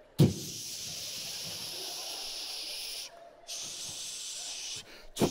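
A man hissing into a microphone to imitate an aerosol hairspray can: a sudden pop, then one long spray of about three seconds, a short break, a second shorter spray, and a brief loud burst near the end.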